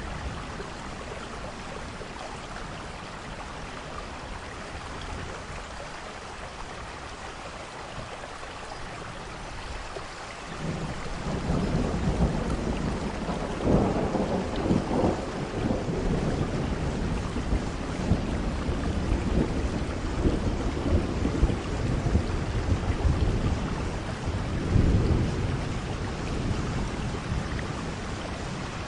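Steady rain falling, joined about a third of the way in by a long roll of thunder that rumbles on and swells several times.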